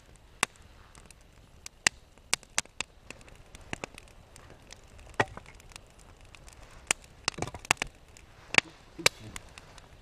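Wood campfire crackling, with sharp irregular pops and snaps of burning wood that come thicker about three-quarters of the way through.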